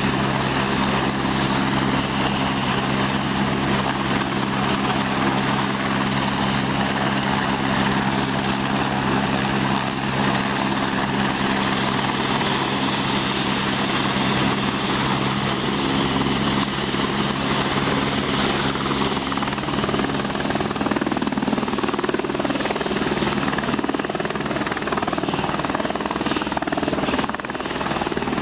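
Airbus AS350 B3 helicopter's single turboshaft engine and main rotor running on the ground, a steady whine and thrum. About two-thirds of the way through the note changes as power comes up and it lifts off its skids into a low hover.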